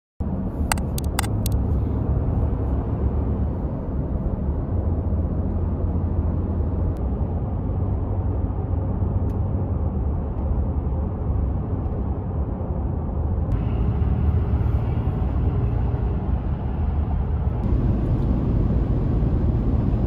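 Road noise inside a moving car's cabin: a steady low rumble of engine and tyres, with a few sharp clicks about a second in.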